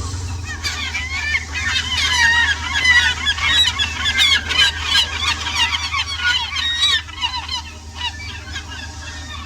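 A flock of birds calling: many short, overlapping calls that crowd together about a second in and thin out after about seven seconds, over a low steady hum.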